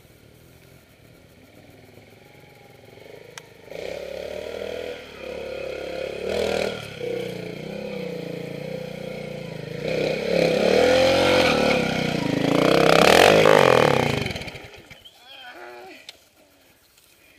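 Trials motorcycle engine blipping and revving as the bike works through an observed section, pitch rising and falling with each throttle burst. It builds to its loudest near the end and then drops away sharply.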